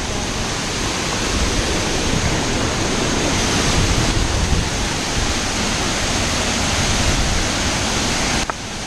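Steady, loud rush of a waterfall pouring down, with a sudden dip in level near the end.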